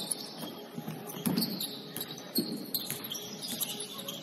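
Basketball game in a gym: sneakers squeaking on the court, with a couple of ball bounces about a second in and again near two and a half seconds.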